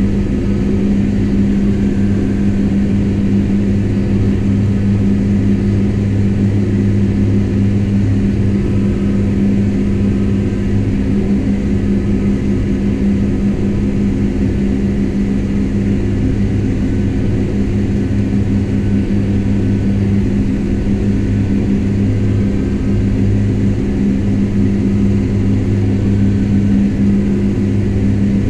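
Kubota M7172 tractor's diesel engine running at a steady speed, heard from inside the cab as a constant low drone while travelling on a paved road.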